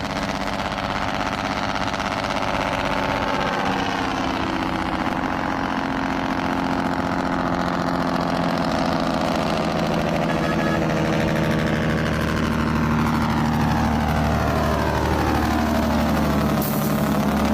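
Diesel truck engine running steadily with its engine brake (compression brake) engaged.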